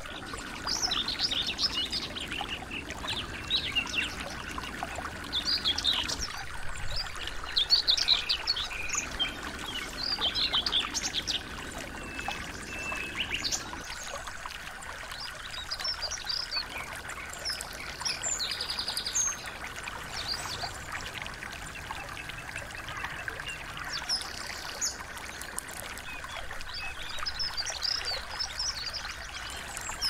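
Small songbirds singing in quick, high-pitched chirps and trills that come in irregular bursts, over the steady rush of a small stream.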